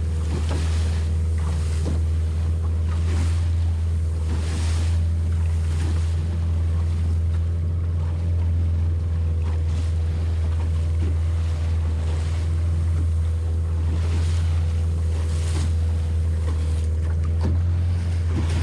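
Motorboat under way: a steady, low engine drone, with water splashing and rushing against the hull every second or two.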